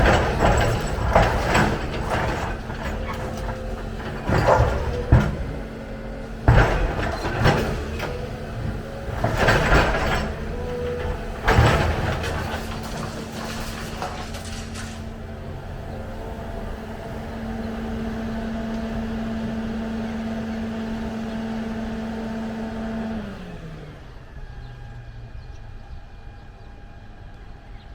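Volvo EC300 excavator's diesel engine running steadily, with a series of loud knocks and clanks through roughly the first twelve seconds. About 23 seconds in, the engine note falls and the sound drops as it throttles down.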